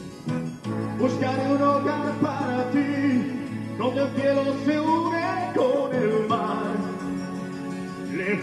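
A man singing in Spanish into a microphone over a karaoke backing track; the voice comes in about a second in.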